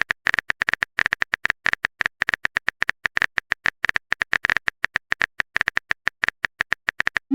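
Rapid keyboard typing sound effect: a quick run of short, sharp clicks, several a second, as a message is typed out. At the very end a short rising swoosh begins.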